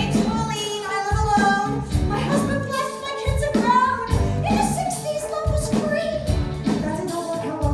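A woman singing a musical-theatre song into a microphone over an amplified live band with a steady beat.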